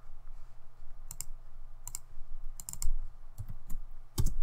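Computer keyboard keys and mouse buttons clicking in small clusters of two or three quick clicks, over a low steady hum.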